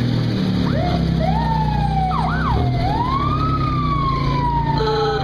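A siren sounding in irregular rising and falling sweeps, with a few quick ups and downs and then a long slow fall, over the steady low running of parade car engines.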